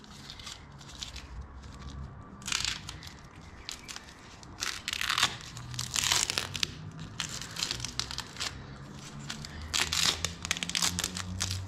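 Tape wrapped round a wiring plug for waterproofing being peeled and torn off by hand, crinkling in irregular scratchy bursts.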